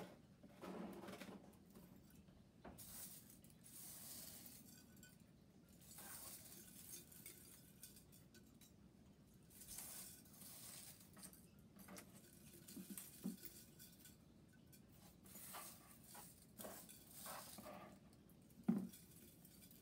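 Small pieces of crumpled aluminium foil being dropped into a glass bottle: faint crinkling and light, scattered clinks against the glass, with one sharper knock near the end.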